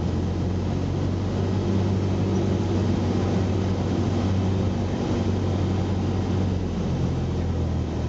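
Cessna 172's piston engine and propeller heard from inside the cabin on final approach: a steady low drone with airflow noise over it.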